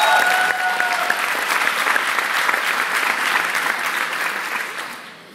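Audience applauding in a hall, the clapping dying away near the end.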